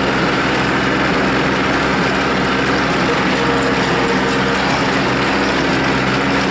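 Farm tractor engine running steadily under load while pulling a hay baler.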